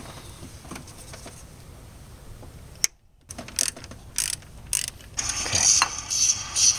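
Hand ratchet wrench clicking as it turns an E10 Torx socket on an extension, working a bolt on the oil filter housing. The sound cuts out briefly about three seconds in, then the clicking comes denser and louder in the last second and a half.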